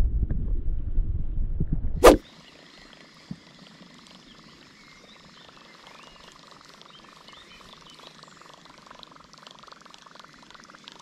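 Low rumbling wind noise on the microphone, cut off by a sharp click about two seconds in. After the click comes a faint, steady outdoor background with thin, high, wavering chirps.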